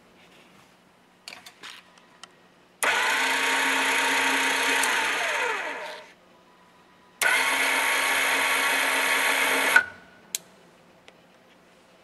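Linear actuator's electric gear motor running its gear train in two runs with a short pause between. The first lasts about three seconds and winds down in pitch as it stops. The second lasts a little under three seconds and cuts off sharply with a click.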